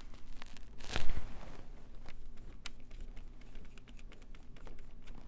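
Brown kraft paper on a craft table crinkling and rustling under hands and arms, with one louder rustle about a second in, followed by light scattered clicks and taps of handling small pieces and a paintbrush.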